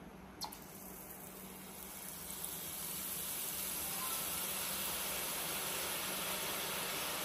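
Hot oil sizzling as drops of besan batter fall through a perforated ladle to fry as boondi, the sizzle swelling over the first few seconds and then holding steady. A light tap about half a second in.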